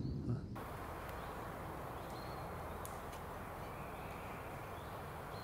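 Woodland ambience: a steady background hiss with a few faint, short bird chirps.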